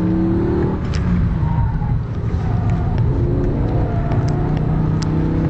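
BMW M5's 5.0-litre V10 engine running hard on track, heard from inside the cabin, its note rising and falling with the throttle.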